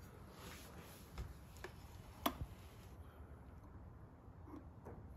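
A few faint, sharp metallic clicks, the loudest a little over two seconds in: long-nose pliers tapping and gripping inside a Keihin FCR carburetor while trying to pull out its jet needle.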